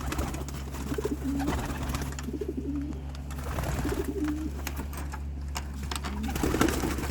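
Racing pigeons cooing, several low calls repeating through the loft, with a steady low hum underneath.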